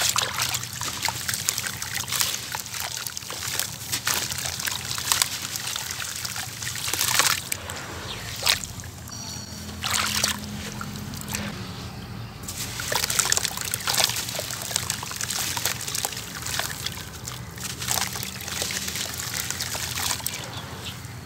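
Hands sloshing and squeezing wet sand-cement slurry in a tub of water: a continuous run of squelches, splashes and dribbles, with a few louder splashes midway.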